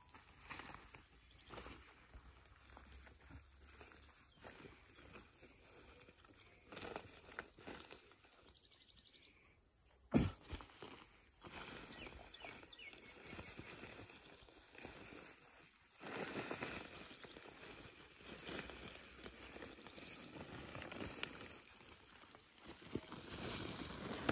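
Faint rustling and crinkling of a plastic bag being handled and opened with a metal snake hook, denser in the second half, over a steady high chirring of crickets. A single sharp click about ten seconds in.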